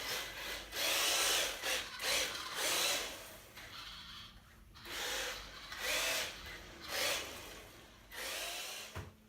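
Wltoys A313 1/12-scale RC short course truck's electric motor whining in about seven short bursts of throttle, each rising and falling in pitch, with its tyres sliding on a parquet floor as it spins donuts.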